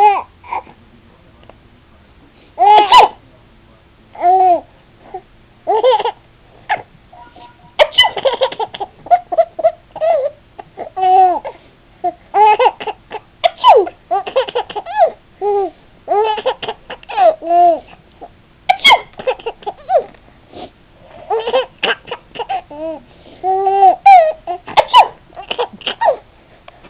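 Baby laughing like mad in repeated short, high-pitched bursts, mixed with babbling, set off by an adult's sneezes.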